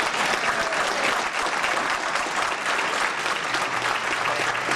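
Audience applause: many people clapping steadily and densely, without a break.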